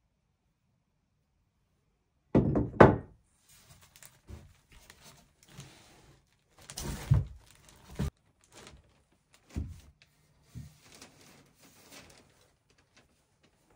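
Lengths of wooden lumber knocking and clattering against each other and the framing as a board is handled and fitted against the rafters. A loud clatter comes about two seconds in, then a few lighter thumps, with scraping and rustling between them.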